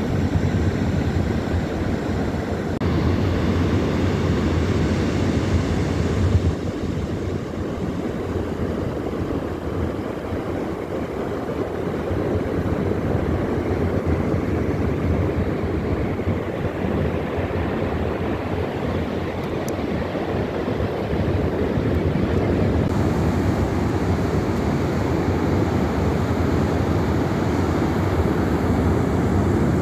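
Steady rumbling wind on the microphone mixed with small waves washing over the sand at the water's edge.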